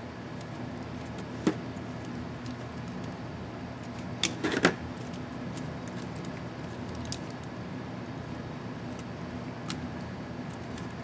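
Sharp little plastic clicks and taps from handling a laptop key cap and its retainer clip while repairing the up-arrow key: a single click, then a quick run of several clicks, then a few faint ticks, over a steady low hum.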